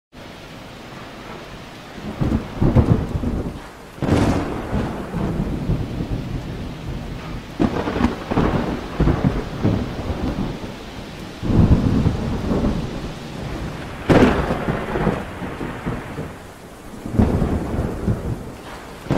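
Thunder: a series of loud claps and rolling rumbles, one every two to four seconds, each starting suddenly and dying away over a few seconds, over a steady hiss.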